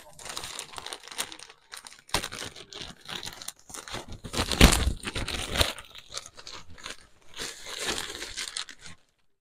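A parcel's packaging being torn open and crinkled by hand: irregular tearing, rustling and crunching, loudest about halfway through.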